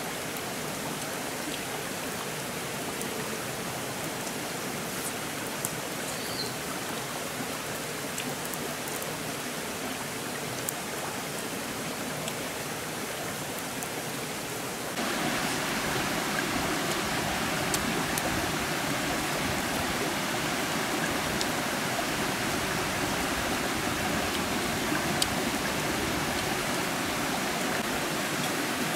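Steady rushing hiss of running water, like a small forest stream, with a few faint clicks on top. The water sound steps up suddenly about halfway through.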